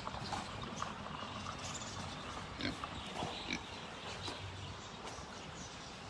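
Faint, scattered short animal noises from miniature donkeys feeding on hay.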